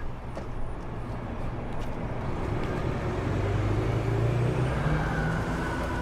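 City transit bus's diesel engine running steadily at idle, with the engine sound growing louder about four seconds in.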